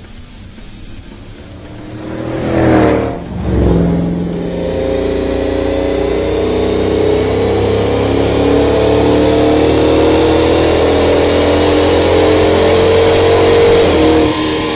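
Dodge Magnum's 6.1-litre Hemi V8 through a Flowmaster exhaust. The car first drives past, loudest about three seconds in. Then the engine pulls under load on a chassis dyno, its note climbing slowly for about ten seconds before breaking off near the end.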